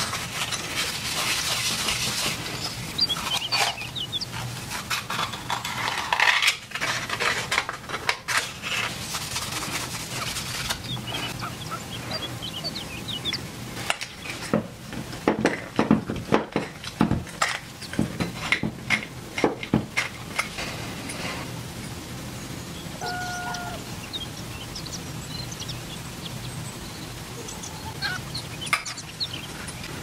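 Paper towel rubbing and rustling against a small steel cup, then a run of sharp metallic clicks and taps as pliers grip and work the cup's thin rim. A short squeak comes about two-thirds of the way through.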